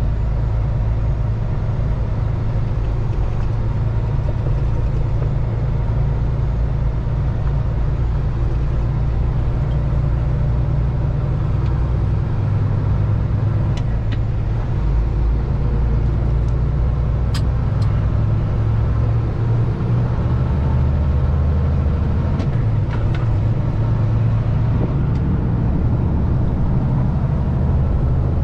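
Kenworth heavy-haul truck's diesel engine running steadily while driving on the highway, pulling a 75,500 lb load; a deep, even drone with a few light clicks partway through.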